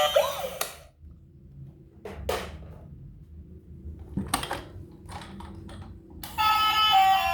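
Background music stops, leaving a few light clicks and knocks spaced over several seconds, then the music starts again near the end.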